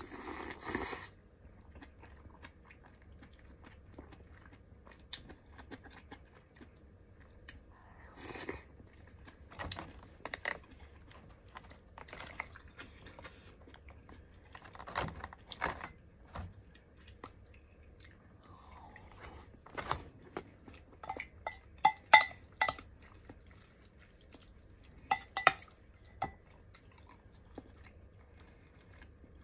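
Close-up eating sounds: chewing mouthfuls of Korean seaweed soup (miyeokguk) with rice. Sharp clinks of the spoon against bowls and containers, loudest in a quick cluster about three-quarters of the way through and again a few seconds later.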